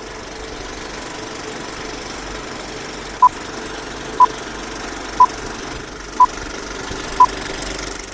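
A steady engine-like rumble with five short, identical electronic beeps exactly a second apart, starting a little over three seconds in, like a countdown.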